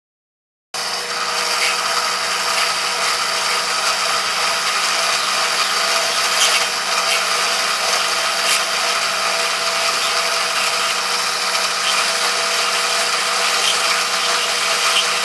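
Drill press running with a 1/4-inch router bit cutting a recess into a plastic yo-yo's face: a steady machine drone with cutting noise, starting about a second in. It is heard sped up to double speed.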